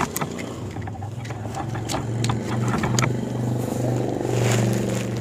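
A steady, pulsing engine hum, swelling a little about four seconds in. A few sharp clicks sound over it as the air rifle is handled and brought to the shoulder.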